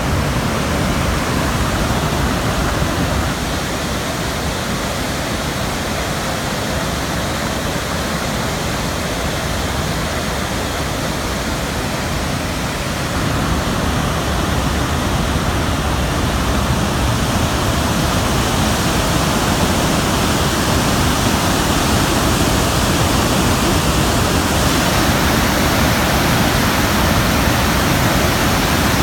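Floodwater pouring over a concrete dam spillway and crashing into the churning pool below: a loud, steady rush of falling water, growing louder about halfway through.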